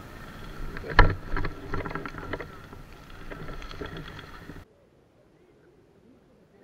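Rustling and handling noise on a body-worn camera, with a few sharp clicks, the loudest about a second in. About two-thirds of the way through, the sound drops to near silence.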